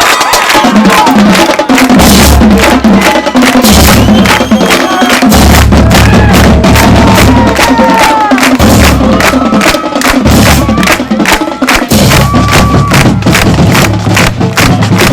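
High school marching band playing loudly: rapid drumline strikes over wind and brass melody lines and heavy sustained low notes.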